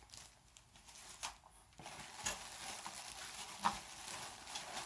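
Faint rustling and crinkling of packaging being handled, with a few small taps; the first second and a half is quieter.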